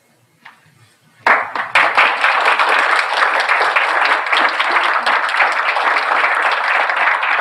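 Audience applauding, breaking out suddenly about a second in and keeping up steadily as a dense crowd of clapping hands.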